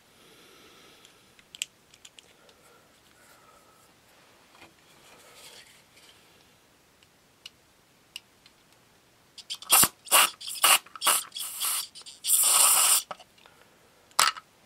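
Aerosol cleaner sprayed through a straw into a lawnmower carburetor's main jet to clear it: a quick run of short hissing bursts about two-thirds of the way in, then a longer blast of about a second and one more short burst near the end. Before that there are only faint clicks of handling the pliers and parts.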